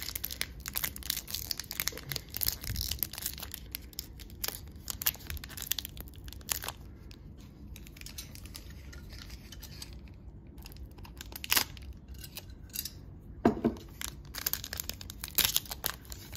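Foil wrapper of a trading card pack torn open and crinkled by hand: a run of quick crackles, sparser in the middle and busier again near the end.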